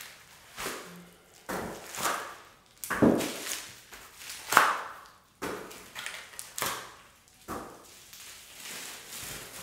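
Bubble wrap being pulled and peeled off a large picture frame: a run of short crinkling, rustling bursts about once a second, the loudest about halfway through, quieter near the end.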